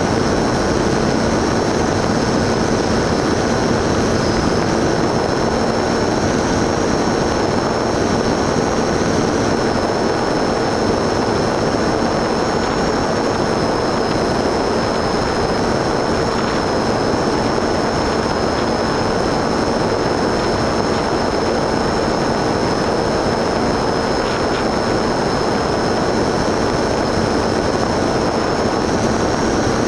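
FPV model aircraft's motor and propeller running steadily in flight, heard from the onboard camera: a constant rush of noise with a steady high whine and a low hum on top.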